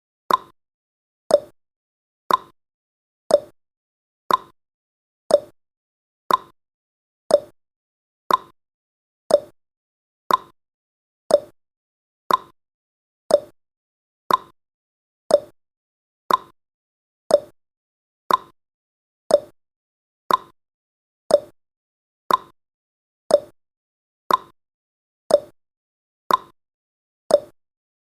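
Countdown timer's tick sound effect: a short pop once a second, each dying away quickly.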